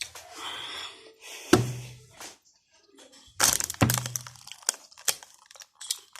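Two sharp cracks with a dull thud, about two seconds apart, with rustling between them.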